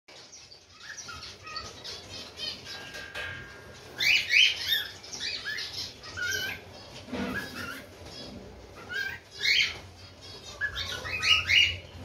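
Cockatiel chirping and warbling: runs of short whistled chirps that glide up and down in pitch, the loudest about four seconds in and again near the end.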